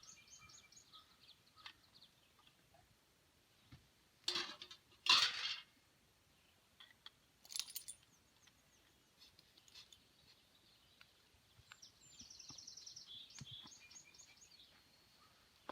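Wild birds chirping at dawn, with scattered short calls and a fast trill of repeated notes around twelve to fourteen seconds in. Two brief loud scuffs a little after four and five seconds in, and a shorter one near eight seconds, stand out above the birdsong.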